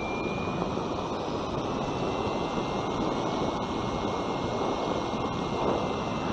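Steady rushing wind noise from air streaming over the microphone of a nose-mounted Runcam 5 on a Bixler 2 foam plane in flight. A faint, high, steady whine runs under it.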